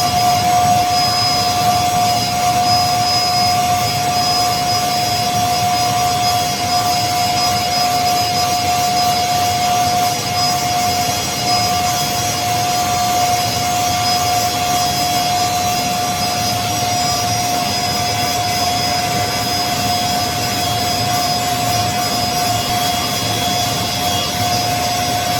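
Ultra-fine grinding mill with its blower running steadily: a loud, constant rushing noise with a steady whine held throughout.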